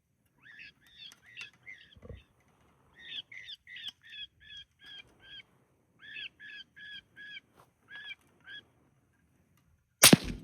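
An electronic predator call playing a distress sound: short squealing cries in runs of four to eight, about three a second, with brief pauses between runs. Near the end a single loud gunshot cracks and echoes, the shot at a coyote drawn in by the call.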